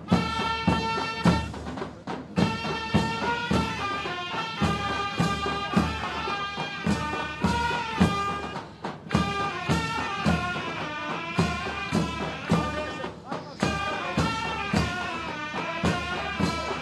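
Ottoman mehter band music: wind instruments playing a melody over steady drum beats, with two brief pauses in the middle.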